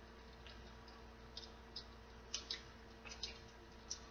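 Faint, scattered light clicks and ticks of tarot cards being handled and laid on a table, about seven in all, over a faint steady hum.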